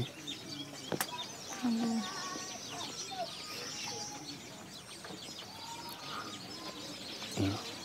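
Chickens clucking, with small birds chirping over a steady outdoor background, and one sharp click about a second in.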